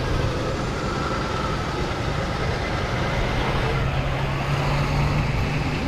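Motor vehicle engine running steadily amid street traffic noise. Its low hum grows stronger and steadier about halfway through.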